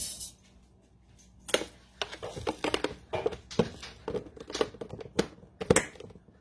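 Dry rice poured from a plastic measuring cup into an empty stainless steel pot in a short rattling rush, then a run of sharp, irregular plastic clicks and knocks as a plastic storage tub is handled and its lid pressed on.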